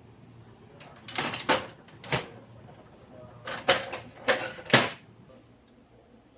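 Laser printer parts being handled: a series of sharp clicks and knocks, in a cluster about a second in and another between three and a half and five seconds in.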